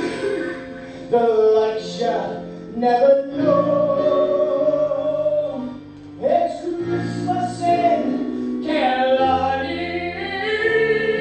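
Live stage singing with instrumental accompaniment, female voice to the fore, the singers holding long notes over a steady bass line.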